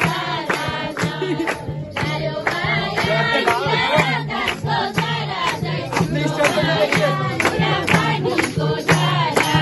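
A song with singing over a steady percussion beat and a sustained low bass note.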